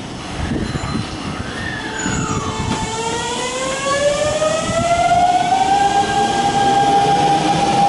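Hanshin electric commuter train pulling away along the platform: an electric whine from its traction equipment rises in pitch for a couple of seconds and then holds steady, over the growing rumble of the wheels on the rails.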